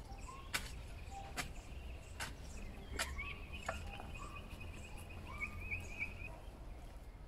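A garden hoe knocking into hard, clumpy soil about five times, roughly once a second, then stopping. A high, rattling trill runs on behind it, with a few short chirps.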